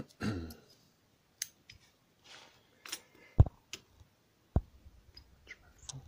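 Small metal clicks and ticks from a padlock and hand tools (pliers, tweezers) being handled on a plastic tray, with two dull knocks a little past the middle as things are set down.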